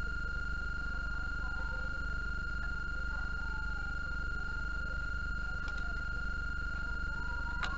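A steady high-pitched electronic tone over a constant low electrical hum, with one sharp click near the end.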